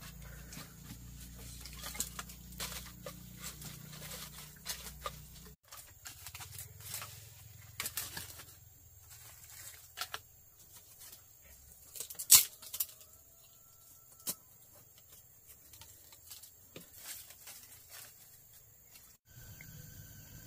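Charred firewood and stones being handled and shifted in a fire pit: scattered clicks, scrapes and knocks, the loudest a single sharp knock about twelve seconds in.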